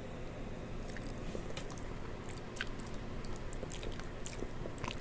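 A woman chewing a mouthful of chicken Alfredo, with short wet mouth clicks and lip smacks scattered through the chewing.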